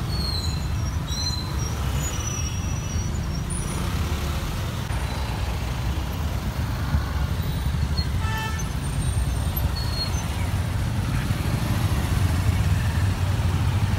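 Road traffic in a jam: a steady low rumble of vehicle engines and tyres, with a brief higher-pitched sound, like a distant honk, about eight seconds in.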